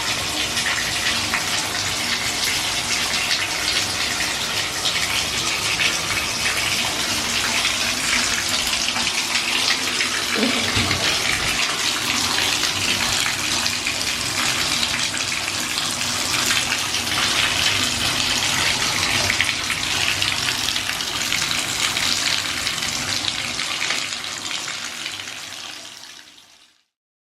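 Steady rush of running water, like a tap or shower running, fading out near the end.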